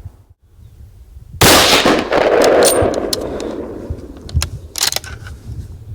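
A single hunting-rifle shot about a second and a half in, its report rolling away in a long echo over about two seconds, followed by several sharp clicks and knocks.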